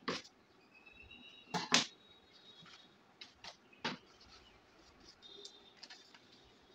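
A few sharp taps and knocks of tools and paper being handled on a tabletop, the loudest about a second and a half in, with faint high-pitched chirping in the background.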